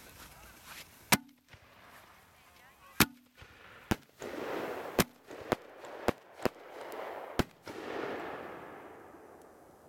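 Fireworks going off on the ground: about eight sharp bangs at uneven intervals, with bursts of hissing between them that fade out near the end.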